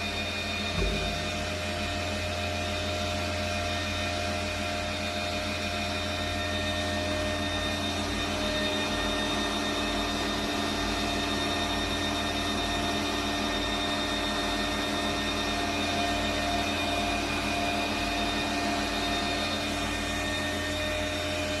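Steady drone of running machinery in a yacht's engine room, a low hum with several steady tones above it, and a single light knock about a second in.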